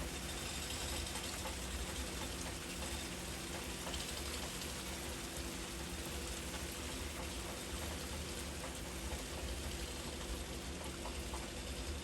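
Heavy rain falling steadily, with a faint, low, steady hum beneath it.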